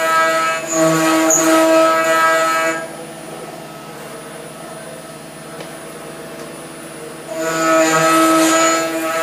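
CNC router spindle and end mill milling a metal plate, a loud steady pitched cutting tone. The tone drops away about three seconds in, leaving a quieter running sound, and comes back near the end as the cutter bites again.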